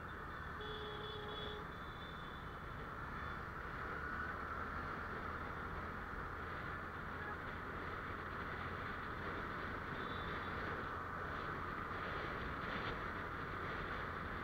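Steady wind rush and road noise from a moving motorcycle in city traffic, with a brief faint beep about a second in.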